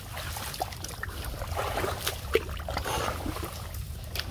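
Water sloshing and splashing as several people wade through shallow, muddy water, with irregular splashes and one sharper splash a little over two seconds in. A low rumble runs underneath.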